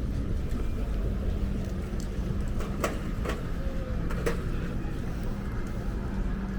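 Urban road traffic: a low, steady rumble of vehicles with a constant engine hum, and a few sharp clicks or knocks around the middle.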